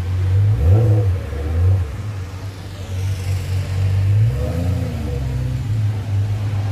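A low, steady engine drone, with two brief swells in pitch, one about a second in and one a little past the middle.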